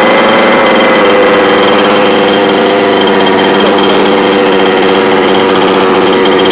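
Two-stroke gas engine of a Losi 5T 2.0 1/5-scale RC truck running at a steady idle through its current muffler, loud and even.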